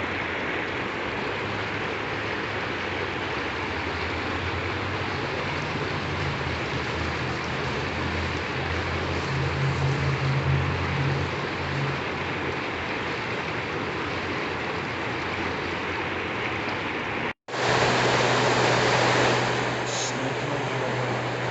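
Steady rush of flowing creek water, with a low steady hum beneath it. The sound drops out for an instant near the end and comes back a little louder.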